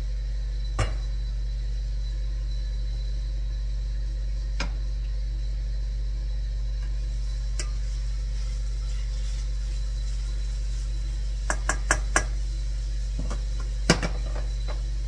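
Kitchen clatter: scattered clinks and knocks of dishes, utensils or jars being handled, with a quick run of four about three-quarters of the way through and the loudest knock near the end, over a steady low hum.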